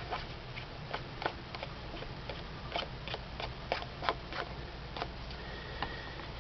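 Light, irregular taps and clicks of card and paper being handled and pressed down onto the page, over a faint steady hum.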